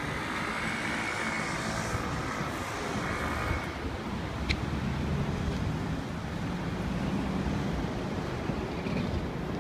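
Steady rumble of city road traffic, with a higher whine over it for the first three seconds or so and a single sharp click about four and a half seconds in.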